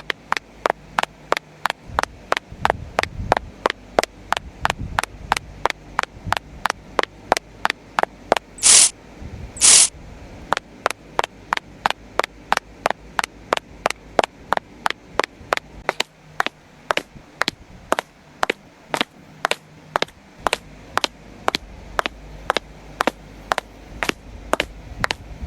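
Evenly spaced sharp taps, about two and a half a second, with two longer, louder hissing bursts about nine and ten seconds in.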